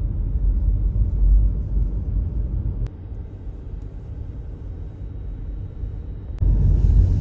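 Road noise heard from inside a moving car: a steady low rumble. It drops quieter about three seconds in and comes back louder near the end.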